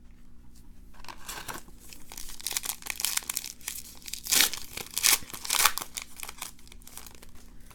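Plastic foil wrapper of a basketball trading card pack being torn open and crinkled by hand, a run of crackling rips with a few louder tears in the middle.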